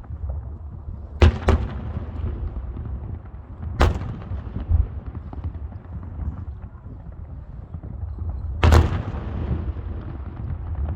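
Aerial firework shells bursting with sharp bangs: a quick double report about a second in, another near four seconds and a big one near nine seconds, each echoing away over a low rumble.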